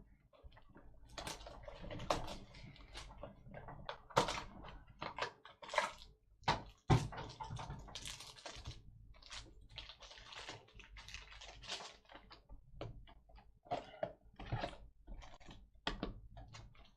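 Crinkling, rustling and tearing of a trading-card box's packaging as it is opened by hand, in quick irregular crackles and clicks.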